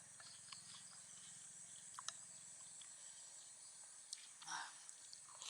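Near-silent outdoor ambience: a faint steady high insect drone, with a few soft clicks and one short brief sound near the end.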